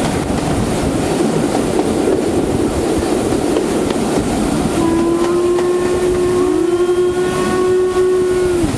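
Steam train running, heard from an open carriage window with rumbling, wind-blown running noise. About halfway through the steam locomotive's whistle starts a long steady blast, held to the end, with a second tone joining partway.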